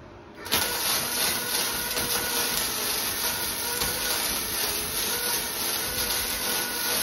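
Wire-feed welder striking an arc about half a second in, then crackling steadily as a weld is run on a steel tube frame.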